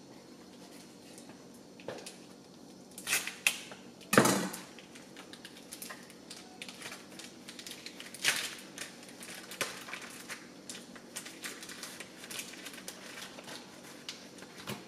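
Plastic sausage packaging crinkling and tearing open by hand: a run of crackles and clicks, the loudest about three and four seconds in.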